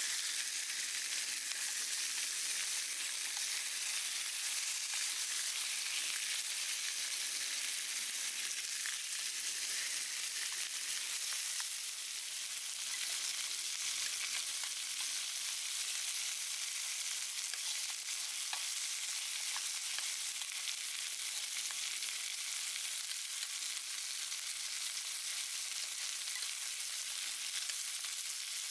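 Food sizzling steadily in a pan over a campfire, with faint small pops scattered through the hiss.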